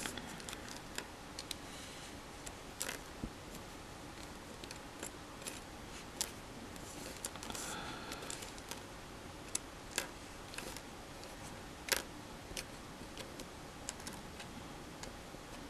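Chopsticks and small plastic model-kit parts tapping and clicking against each other during assembly: scattered light clicks, with sharper ones about ten and twelve seconds in.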